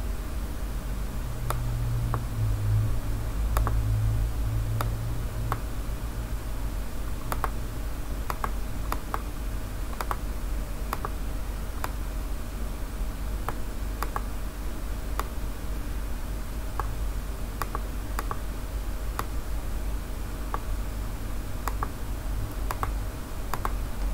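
Scattered clicks of a computer keyboard and mouse, one or two a second at irregular intervals, over a steady low hum that is a little stronger in the first few seconds.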